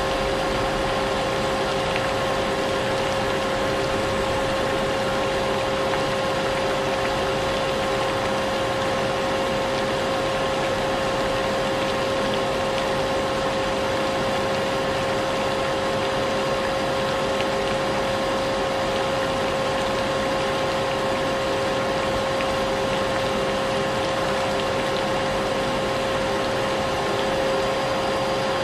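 Vacuum cleaner running steadily with a constant motor whine, mixed with an even hiss of rain.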